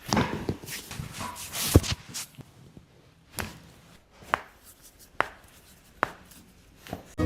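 Hands and clothing rustling against a patient's body during chiropractic treatment, with a sharp knock near the two-second mark, then four short, sharp taps or cracks about a second apart.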